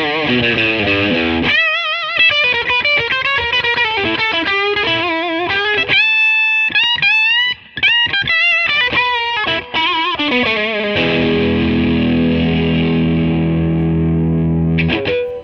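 Fender Custom Shop 1962 Telecaster Custom electric guitar played through an amp: a single-note lead line with wide vibrato and bent notes, then a chord left ringing for the last few seconds until it cuts off.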